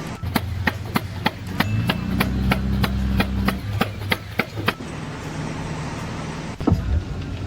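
A rapid series of evenly spaced knocks, about three a second, like hammer blows, over a steady low motor hum. The knocks stop for a couple of seconds, then there is one louder knock near the end.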